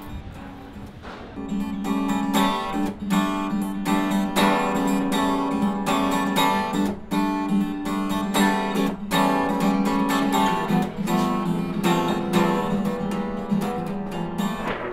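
Acoustic guitar strummed in a steady rhythm of chords, coming in fully about a second in and stopping abruptly at the end.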